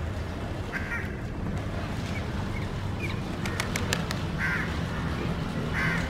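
Three short, harsh bird calls, about a second in, midway and near the end, over a steady low hum. A few sharp clicks fall between the second and third calls.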